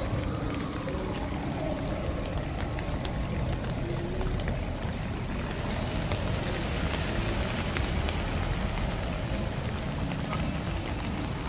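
Rain on a city street: scattered drops ticking on surfaces over a steady hiss of traffic on wet pavement.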